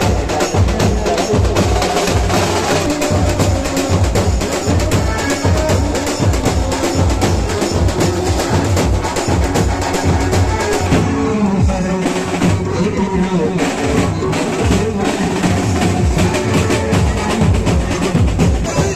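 Loud drum-heavy music, with dense, fast percussion and a strong bass beat.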